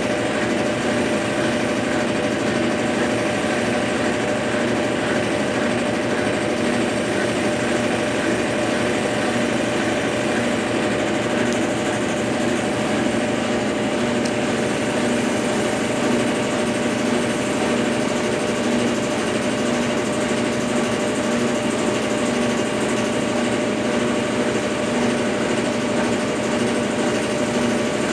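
Consul Facilite 10 kg washing machine running through its rinse-and-spin program: a steady motor hum with a constant whine and no pauses.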